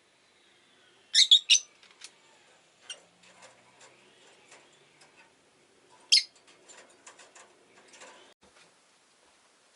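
Rosy-faced lovebird giving sharp, high chirps: three in quick succession about a second in and one more about six seconds in, with softer clicking chatter in between.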